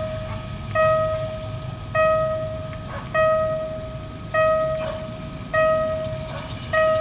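Level crossing warning bell at an automatic barrier, ringing one clear ding about every 1.2 seconds, each ring sharp and then fading, signalling an approaching train.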